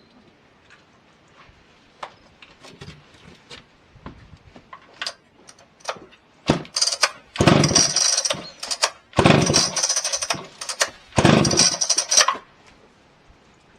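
Husqvarna 2100 chainsaw engine running in three short bursts of about a second and a half each, cutting out between them, after some scattered knocks.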